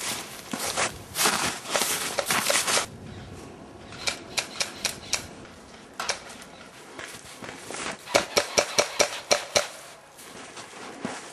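Airsoft guns firing sharp snapping shots: a string of about six roughly four seconds in, and a quicker run of about eight near the end. Before that comes a few seconds of loud rustling and scuffing.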